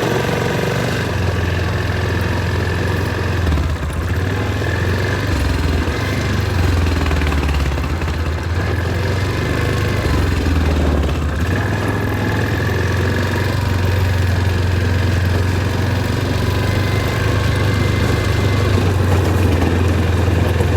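Quad bike (ATV) engine running steadily at low revs as it moves, a continuous low drone.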